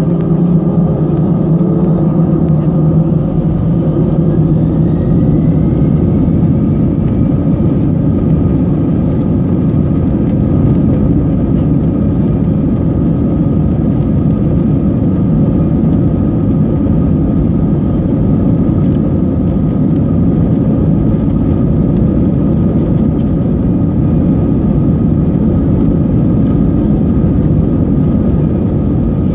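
Airbus A319's jet engines spooling up to take-off thrust, heard inside the cabin over the wing. A whine rises in pitch over the first few seconds, then engine and runway noise hold loud and steady through the take-off roll.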